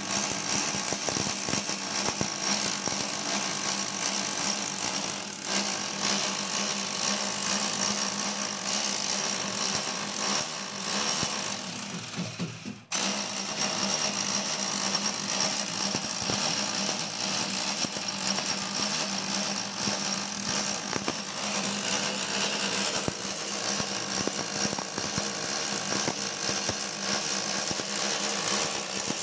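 Corded electric power tool cutting a channel into a masonry wall for concealed electrical conduit, running continuously with a grinding, hammering noise. It stops briefly a little before halfway, then starts again.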